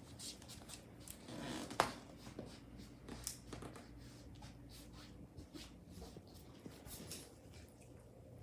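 Faint, scattered light clicks and taps of dogs moving about on a floor, with one sharper tap about two seconds in.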